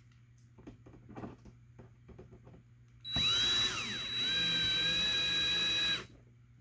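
Cordless drill run into a 3D-printed plastic panel for about three seconds, starting about three seconds in. Its whine falls in pitch as it first bites, then holds steady until it stops abruptly. Light handling clicks and taps come before it.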